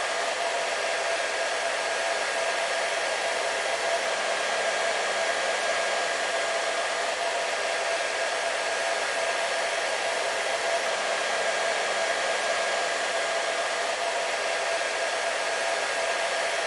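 Hair dryer running steadily: a constant rush of blown air with an unchanging motor whine.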